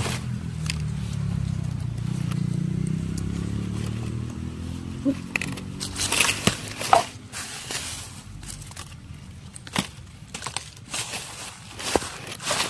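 Hands rummaging through dry leaf litter, twigs and soil: irregular crackling, crunching and scraping, thickest from about six seconds in. A low droning hum fills the first five seconds.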